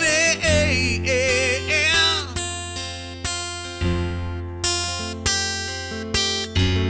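Live acoustic band music: a singer holds a note with vibrato for about the first two seconds. Then strummed acoustic guitar chords with keyboard carry on without voice, roughly one strum every two-thirds of a second.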